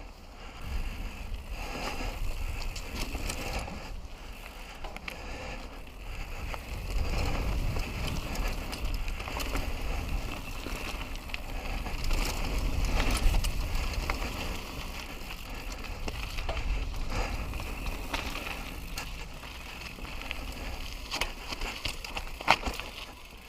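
Mountain bike ridden over a dirt trail: tyres on dirt and stones, with frequent clicks and rattles from the bike and a low wind rumble on the helmet camera's microphone. A sharper knock comes near the end.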